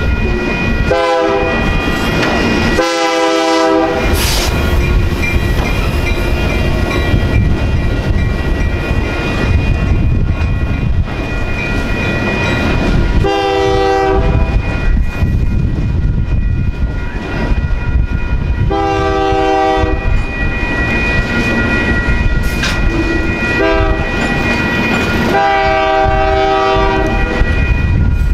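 Union Pacific freight locomotive horn. There are two blasts early on, then from about 13 seconds in the long-long-short-long grade-crossing signal, the last blast held about three seconds. Under it, freight cars rumble and clack past steadily, with a steady high ringing that fits the crossing bells.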